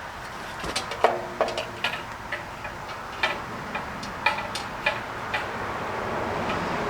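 Irregular metallic clicks and taps with short ringing, about a dozen over a few seconds, from metal parts being handled and fitted, with a scraping sound building near the end.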